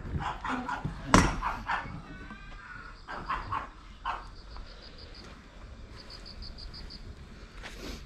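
A dog barking several short times, the loudest bark about a second in, with crickets chirping in fast, even pulses in the background.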